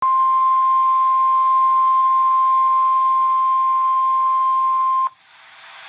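NOAA Weather Radio warning alarm tone: one steady high beep at about 1050 Hz that sounds for about five seconds, then cuts off sharply into radio hiss. It is the attention signal that a warning broadcast, here a flash flood warning, is about to follow.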